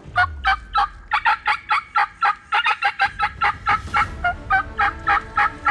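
Eastern wild turkey calling in a long, rapid series of loud, sharp notes, about four or five a second, with a short break a little past two seconds in.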